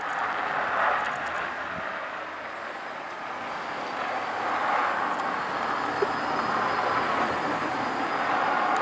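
Skateboard wheels rolling down a steep asphalt street: a rough, steady rolling noise that swells and fades as the riders come closer and draw away, with one short sharp knock about six seconds in.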